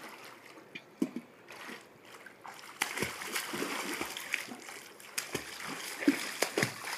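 Water splashing as a swimmer moves through it, quiet at first and then louder and busier, with a run of sharp splashes from about three seconds in.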